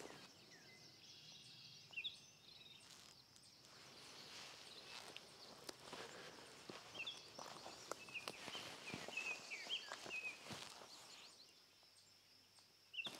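Soft footsteps on bare rock, with short, high chirps from small birds scattered through, most of them in the second half. It falls almost silent near the end.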